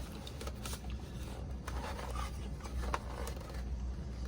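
Plastic handling noises from a power strip tower being handled: scattered light clicks and scrapes, over a steady low hum.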